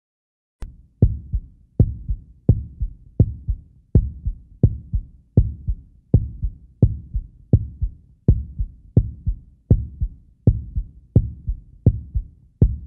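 Deep, evenly spaced thumps beginning with a sharp hit less than a second in, then a strong beat with a softer after-beat about every 0.7 seconds, like a slow heartbeat pulse.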